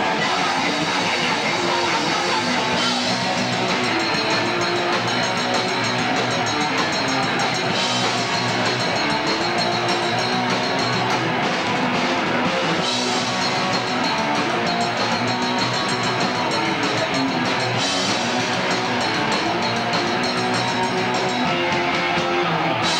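Live band playing loud heavy rock: electric guitar and drum kit, with the cymbals opening up about every five seconds.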